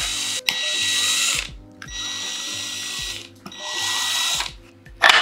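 Cordless drill/driver backing screws out of a Bafang M625 mid-drive motor's casing, whirring in three runs of about a second each with a steady high whine. A short loud burst of noise near the end.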